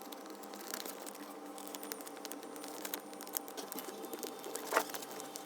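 Tape-laminated paper being creased and folded, sped up: a rapid run of small crinkles, crackles and clicks over a faint hum.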